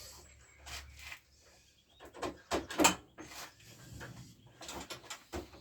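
Clunks, knocks and scraping of metal parts being handled while a scooter engine is worked free of its frame, with the loudest knock about three seconds in.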